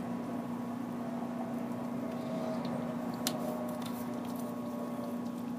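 Steady low electrical hum of an appliance or fan in a small room, with one sharp click about three seconds in.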